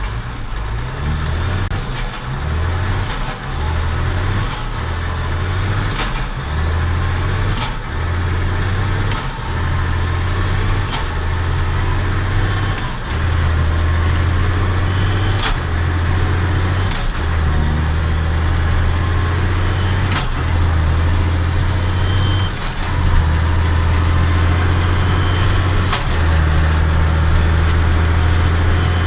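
Case IH Magnum 7140 tractor's six-cylinder diesel engine running steadily, with a low drone that swells and drops back in pulses and sharp ticks every second or two.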